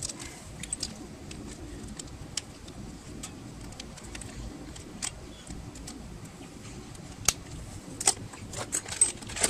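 Scattered light metallic clicks and clinks of sockets and hand tools being handled while looking for the right size, with a denser run of clinks near the end.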